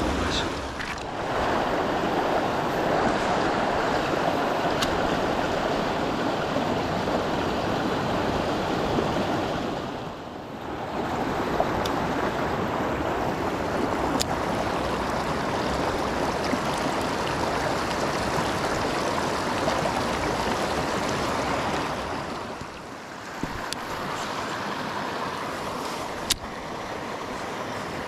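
Fast, shallow mountain stream rushing over stones: a steady wash of water that drops briefly three times, with a few faint sharp clicks.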